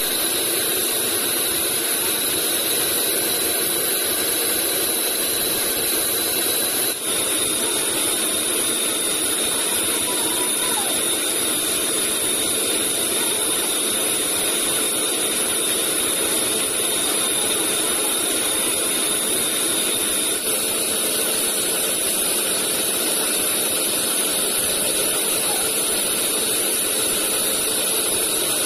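Large horizontal band sawmill running steadily, its blade sawing through a big log, with a steady high whine over the machine noise.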